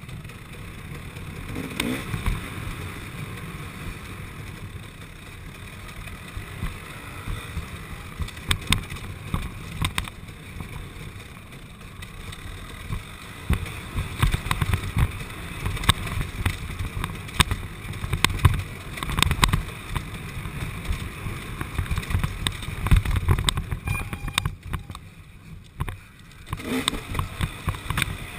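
KTM 300 XC two-stroke dirt bike engine running as the bike is ridden along a rough trail, revving up about two seconds in and again near the end after a brief easing off. Frequent short knocks and rattles from the bike jolting over bumps.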